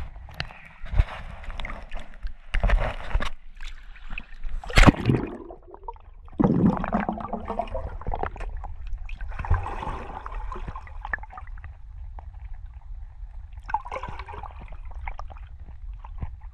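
Muffled sloshing and gurgling of pool water heard through a GoPro held underwater, over a steady low rumble, with irregular knocks and clicks against the camera; the sharpest knock comes about five seconds in.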